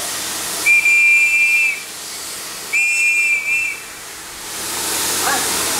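Two blasts of a railway guard's hand whistle, each about a second long and steady in pitch, the platform signal for the steam train to depart. A steam hiss rises near the end.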